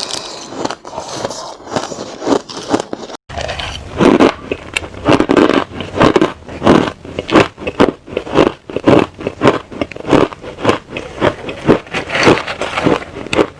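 A person chewing crushed bits of hard ice close to the microphone, with rapid, sharp crunches. About three seconds in the sound breaks off for a moment, then comes back louder, at about two to three crunches a second.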